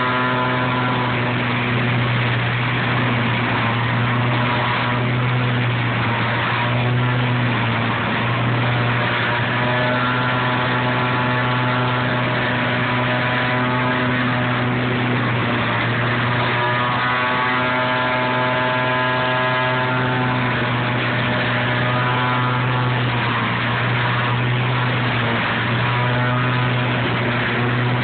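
Large engine-driven leaf vacuum running at full speed, with a loud, steady drone and a rush of air through its wide intake hose. The pitch dips slightly now and then.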